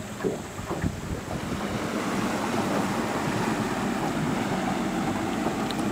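A boat's motor running steadily, growing louder over the first two seconds, with wind buffeting the microphone.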